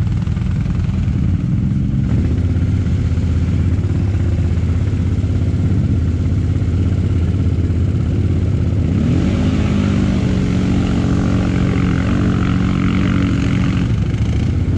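Quad bike (ATV) engine running as it rides a trail, a steady low hum. About nine seconds in the engine pitch rises as it speeds up, holds higher, then drops back near the end.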